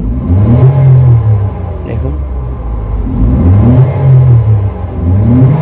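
Toyota Corolla engine being revved from idle in two throttle blips, the pitch rising and falling back each time, with a third rise starting near the end. The revs climb properly: the sign that the electrical fault that had stopped it accelerating has been cured.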